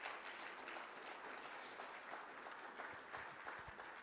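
Audience applauding at the end of a talk: many hands clapping at a steady level.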